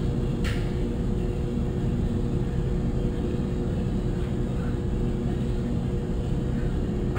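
A steady machine hum with an even, unchanging pitch, and a single short click about half a second in.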